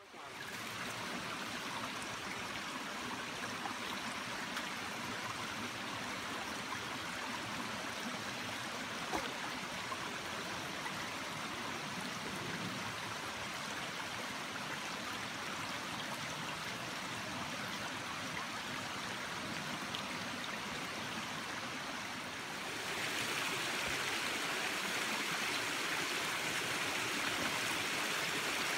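Mountain stream running over rocks: a steady rush of water that steps up louder about three-quarters of the way through.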